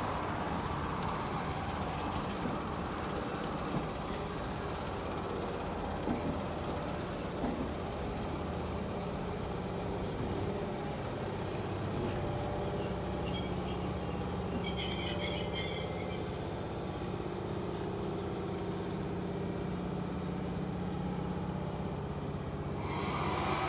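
Heritage train running slowly past beneath, with a steady low running noise. From about ten seconds in, a steady high squeal joins it for several seconds, with louder clatter as the locomotive passes underneath.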